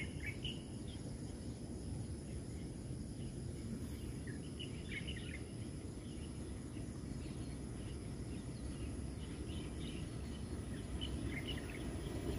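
Outdoor ambience: a steady low background rumble with scattered short bird chirps throughout.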